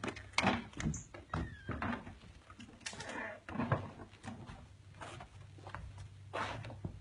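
Footsteps on wooden floorboards: irregular knocks and clunks over a low steady hum, with a short squeak about one and a half seconds in.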